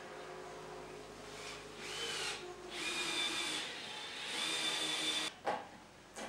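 Cordless drill with a screw-fixing bit driving a screw into a wooden door frame, its motor whining in two spells, the second longer. A sharp knock follows near the end.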